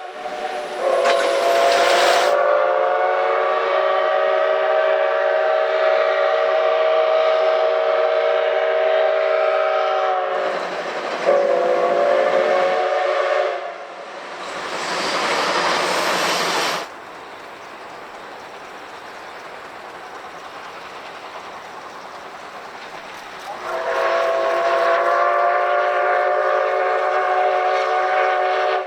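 Steam locomotive whistle sounding a long blast of about nine seconds, then a short blast. A few seconds of loud steam hiss follow, and near the end another long whistle blast begins and is still sounding at the close.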